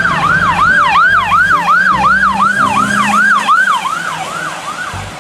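Police siren sounding in a fast yelp, its pitch rising and falling about three times a second and fading near the end.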